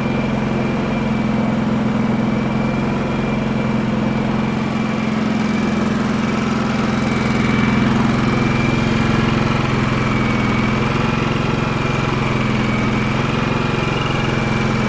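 Champion 4500-watt dual-fuel inverter generator running steadily on propane in eco mode with no load, its engine note even, with a faint steady high whine above it. It runs smoothly after the repair.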